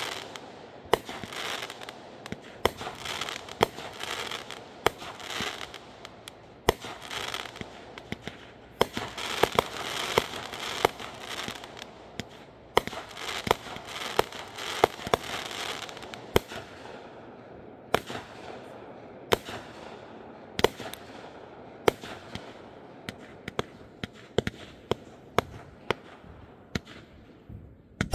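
Small aerial fireworks launched in quick succession. There is a long run of sharp bangs, at times several a second, over a hissing, crackling haze that thins out in the second half.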